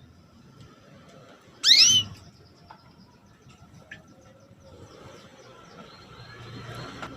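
Female canary giving one loud, quick upward-sweeping 'cuit' call about two seconds in, with faint chirps around it: the female's call to a male.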